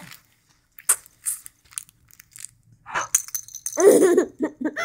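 Baby giggling with his fingers in his mouth: a few short, breathy chuckles, then a louder voiced laugh with a wavering pitch about four seconds in, broken into quick catches of breath.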